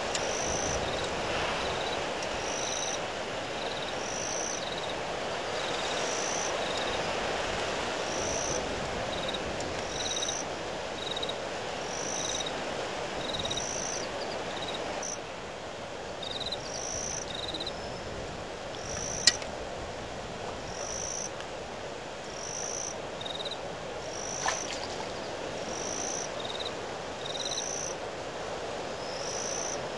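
Windstorm blowing steadily with a rushing noise, while a high, short chirping call repeats about once a second. Two sharp clicks break through, one a little past the middle and one later on.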